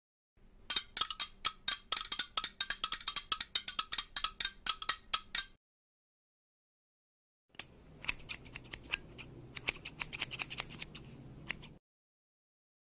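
Scissors snipping quickly, in two runs of rapid clicks several seconds long with a short silence between them.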